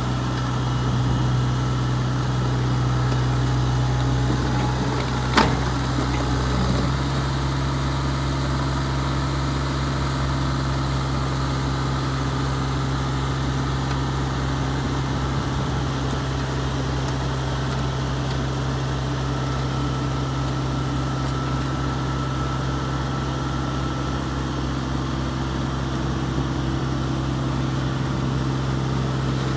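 Bobcat E32 mini excavator's diesel engine running steadily, with a single sharp clack about five seconds in.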